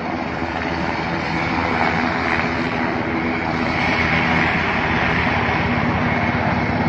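UH-60 Black Hawk helicopter running on the ground, its twin turboshaft engines and rotor making a steady noise with a low hum.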